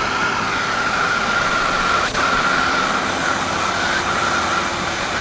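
Handheld gas torch lit with a click, then burning with a steady rushing hiss and a faint steady whistle as its flame plays into the perforated core of a dirt bike exhaust silencer.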